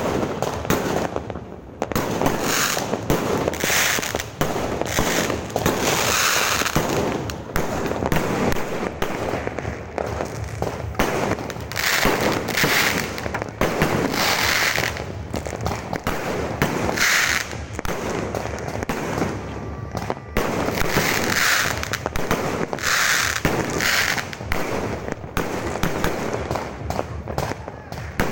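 Fireworks going off in a dense, continuous barrage of bangs, with louder bursts every second or two.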